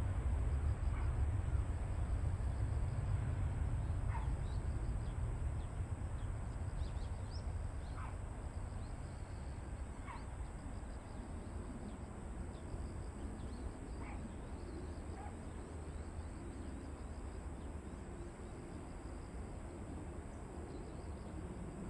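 Distant low rumble of a Boeing 737-800's CFM56 jet engines at takeoff thrust, slowly fading as the aircraft rolls away and climbs out. Short falling bird chirps come through about six times over a faint, steady high insect trill.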